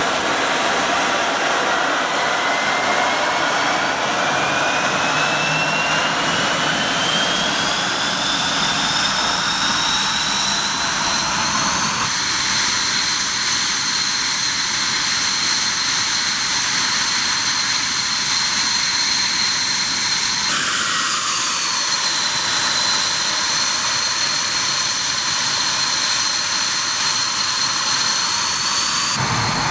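Jet engine of a Dassault Mirage 2000, a single SNECMA M53 turbofan, spooling up: a high whine rises steadily in pitch over about ten seconds, then holds as a steady high whine at idle. The pitch dips briefly and climbs back about two-thirds of the way through.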